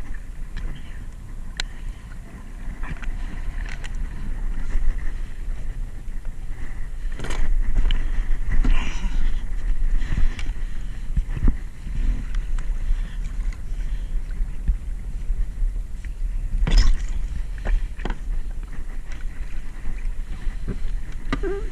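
Wind buffeting the microphone while water splashes and laps around a kayak at sea, with scattered short splashes and knocks, the strongest about a third of the way in and again near three quarters.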